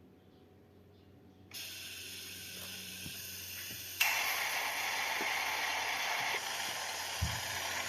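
Compressed air hissing steadily from an air gun. It starts suddenly about a second and a half in and gets louder and fuller at about four seconds, with a short dull thud near the end.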